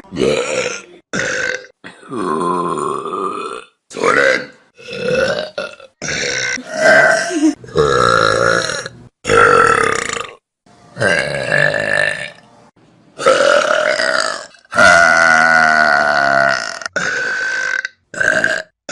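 Human burps from different people, one after another: about fifteen loud belches, some short and some drawn out for a second or two, each cut off suddenly.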